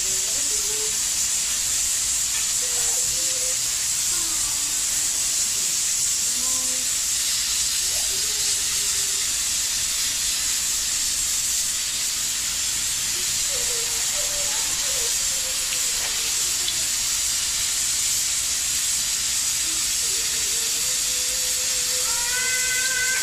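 Pressure cooker venting steam with a steady, high-pitched hiss.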